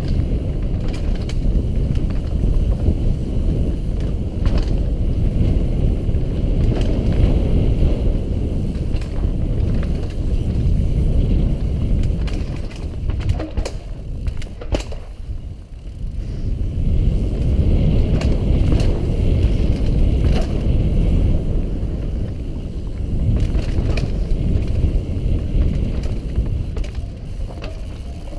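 Mountain bike riding fast down dirt singletrack: a steady low rumble of tyres on dirt and wind on the action camera's microphone, with scattered clicks and knocks as the bike rattles over bumps, briefly easing about fifteen seconds in.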